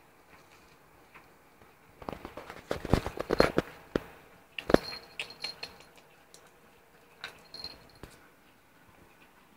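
Bichon Frise playing right up against the microphone: a close flurry of clicks, rustles and knocks about two seconds in, lasting some four seconds with one sharp knock among them, then a few scattered clicks.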